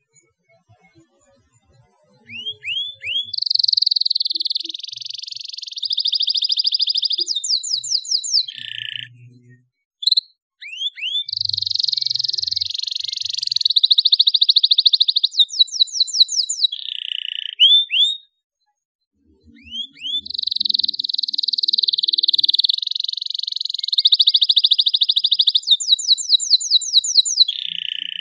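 Domestic canary singing: three long song phrases with short pauses between, each made of quick rising chirps and fast rolling trills.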